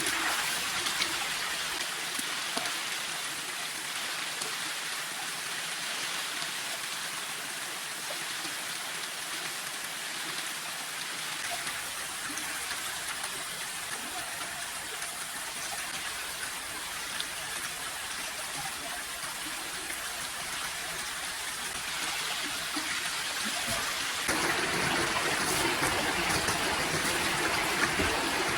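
Steady rushing water noise, getting louder near the end.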